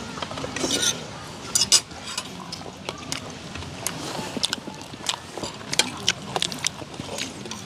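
Cutlery and dishes clinking and scraping during a meal: scattered sharp clicks, with the loudest ones about a second and a half to two seconds in.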